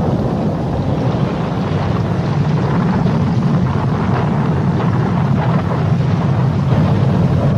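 Loud, steady rush of hurricane wind and sea around a ship, with a heavy low rumble underneath.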